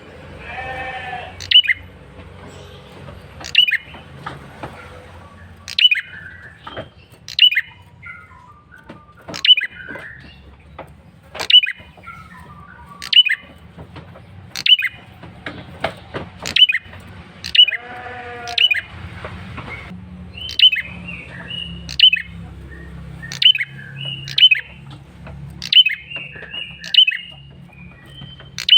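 Male prenjak kepala merah giving its loud lure call: sharp, high calls that sweep downward, repeated about once every second or so, with busier twittering near the end.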